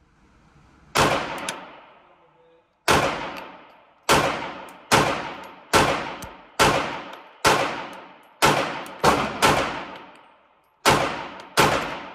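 A string of about twelve single pistol shots from a 9mm Glock fitted with a Radian Ramjet, each trailing off in the echo of an indoor range. After a gap following the first shot they come roughly one every 0.8 s, with a quick pair near the end as the pace picks up.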